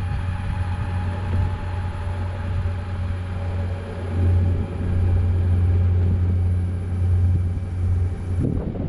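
Metroboard electric skateboard riding over concrete: a steady low rumble of wheels and wind on the microphone, with a faint steady whine from the drive above it. The higher sounds drop away near the end.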